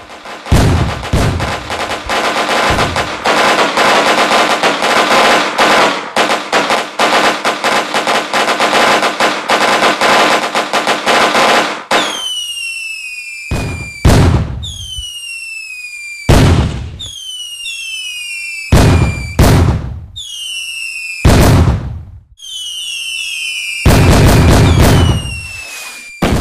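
Fireworks: for about twelve seconds a dense barrage of rapid crackling and bangs, then a string of whistling fireworks, each a falling whistle cut off by a loud bang, around eight of them one to three seconds apart.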